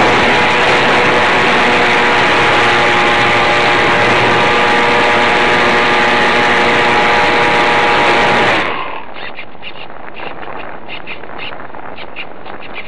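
The electric motor and propeller of a model plane whine steadily over loud airflow, heard from a camera mounted on the plane. About two-thirds of the way through the whine stops suddenly, leaving wind buffeting on the microphone.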